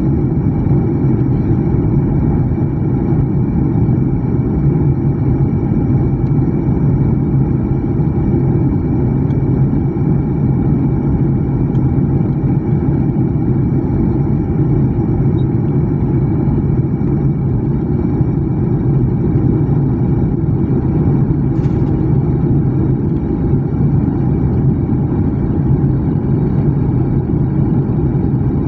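Steady cabin noise inside a jet airliner in flight: a loud, even rumble of the engines and the airflow over the fuselage, with a faint steady whine above it.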